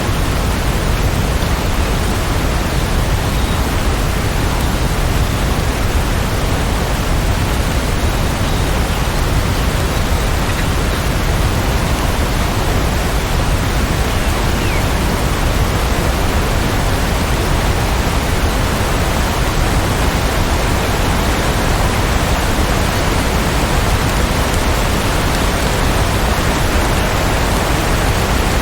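Steady heavy rain, a dense, even hiss with no thunderclap or other distinct event.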